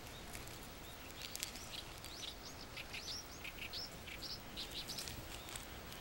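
Small birds chirping in quiet outdoor ambience: many short, high, quick notes a few times a second over a faint steady hiss.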